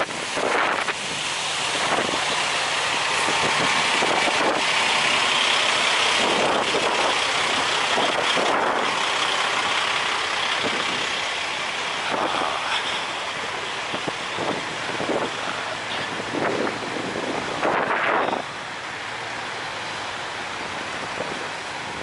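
Strong wind blowing across the microphone: a steady rushing with irregular gusts that buffet it, easing a little near the end.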